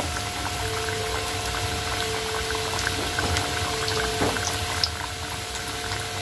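Pieces of boiled cassava deep-frying in hot oil in a wok: a steady bubbling sizzle with small scattered crackles, the pieces partway to golden.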